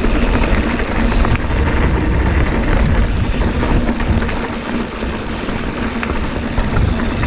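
Mountain bike riding down a rough bike-park trail: a steady rumble of tyres over dirt, roots and rocks, with frequent small knocks and rattles from the bike.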